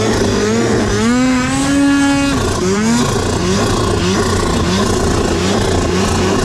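Snowmobile engine revving under throttle: its pitch climbs about a second in, holds high for about a second, then drops sharply and rises again in short bursts about twice a second as the throttle is worked, over a steady rushing noise.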